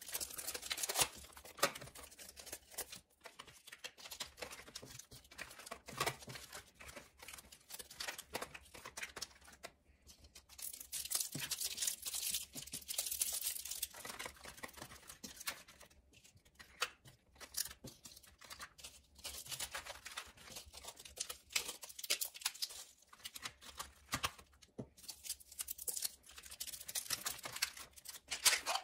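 Medicine packets, plastic pouches and blister packs crinkling and rustling as they are handled and packed, with small clicks and knocks of a clear plastic organizer box.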